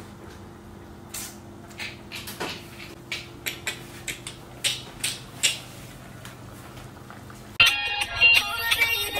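Scattered light clicks and knocks of kitchen utensils and cookware over a steady low hum. Music starts abruptly near the end.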